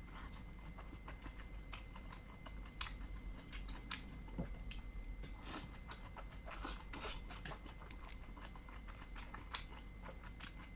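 Close-miked chewing of dumplings: many small, irregular wet clicks and smacks of the mouth.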